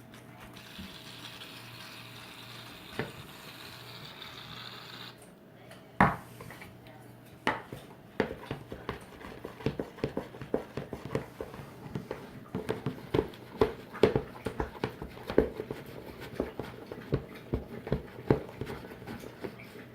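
Aerosol shaving cream spraying from its can in a steady hiss for about five seconds. Then a knock or two, and a spoon stirring shaving cream into glue in a bowl, with quick repeated clinks and scrapes.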